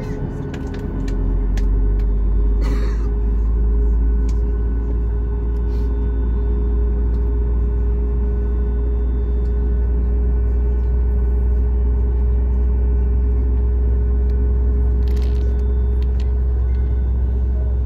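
Cabin noise inside a Boeing 737-8200: a steady deep rumble that swells up about a second in, under a steady mechanical hum. Two short hisses come in, one near the start and one near the end.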